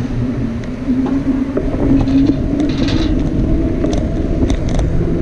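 Wind rumbling on the microphone while riding a bicycle, mixed with road noise and a steady low hum that rises slightly in pitch about a second in.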